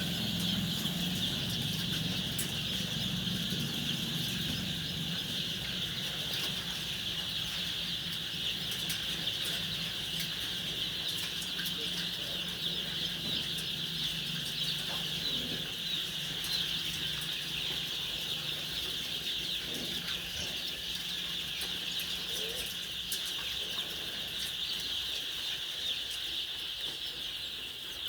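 Large flock of chickens clucking and calling together in a dense, steady chorus. A low hum sits under the first two-thirds and fades out.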